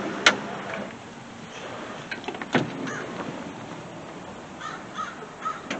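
A few faint, short crow caws near the end over a steady outdoor background, with three sharp clicks spread through it.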